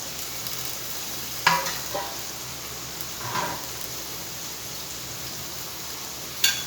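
Chopped vegetables sizzling steadily in hot oil in a pan as they are stir-fried, with a utensil knocking against the pan four times.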